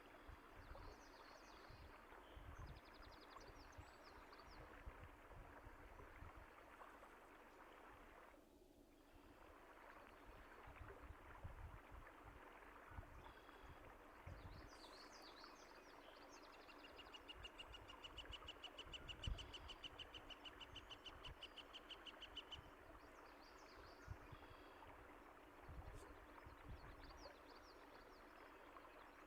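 Faint, steady running water with birds chirping over it. Near the middle, one bird gives a rapid trill of quickly repeated notes lasting about six seconds.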